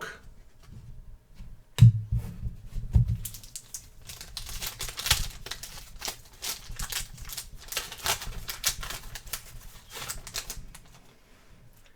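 Trading cards being flicked through and slid against one another: a knock about two seconds in, then a quick run of clicks and rustles that fades out near the end.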